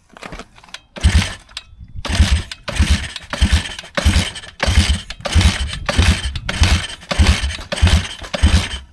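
Single-cylinder pitbike engine being cranked over with its spark plug out and a compression tester in the plug hole, starting about a second in as regular chugging pulses about twice a second: a compression test.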